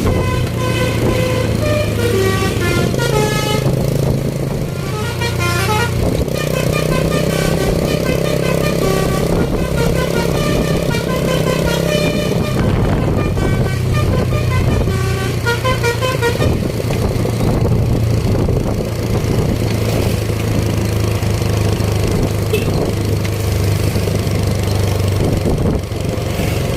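Basuri telolet multi-tone bus horn playing several bursts of a quick chiming tune, which stop a little past halfway. A bus's diesel engine runs steadily underneath throughout.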